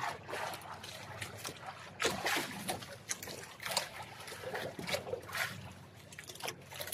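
Sea water lapping and splashing irregularly against the hull of an outrigger boat at rest, with some wind on the microphone.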